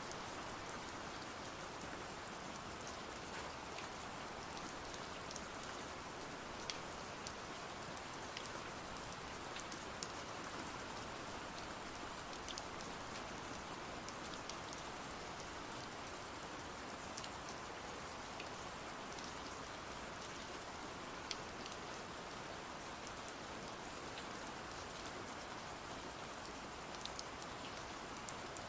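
Steady rain falling, an even hiss with scattered sharp ticks and pops through it.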